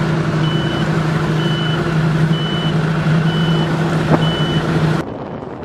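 A high-pitched electronic beeper sounding about once a second over the steady drone of the motorboat's engine. About five seconds in the drone drops away suddenly, leaving the beeps fainter.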